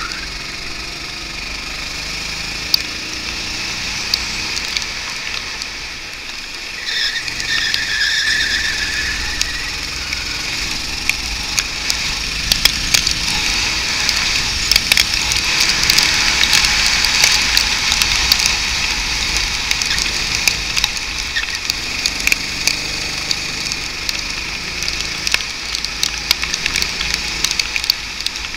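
Go-kart running at race speed, heard from an onboard camera as a steady hiss of engine and wind, its engine pitch swelling briefly about a quarter of the way in. Sharp crackling clicks come thick and fast through the second half.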